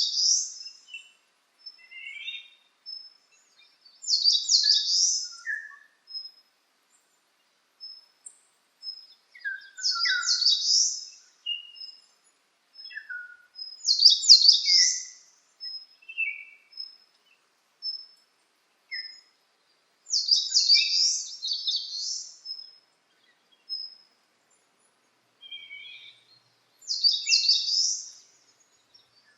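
Wild songbirds singing: one bird repeats a rich, high song phrase about every five or six seconds, six times, with short thin high notes between, while other birds add scattered lower chirps.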